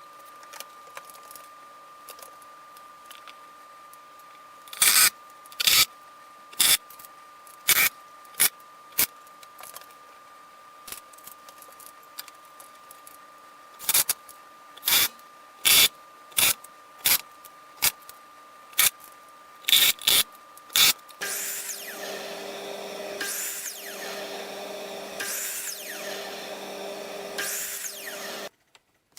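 A series of sharp, loud knocks on wood, irregularly spaced, then a power tool such as a drill runs steadily for about seven seconds.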